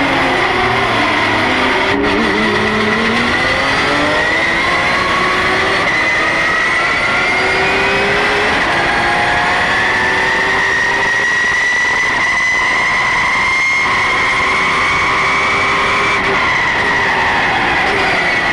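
Porsche GT3 Cup race car's flat-six engine heard from inside the cockpit under racing load. Its pitch bottoms out about two seconds in as the car takes a corner, then climbs steadily as it accelerates down the straight.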